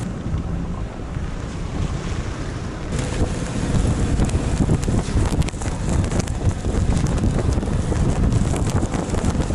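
SUV driving through deep snow: the engine running and the tyres churning and throwing up snow, with wind buffeting the microphone. The sound changes character about three seconds in.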